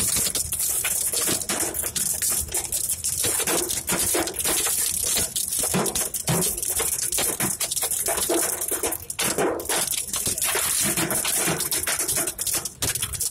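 Large hailstones and heavy rain pelting down: a dense, irregular clatter of hard impacts over a steady hiss.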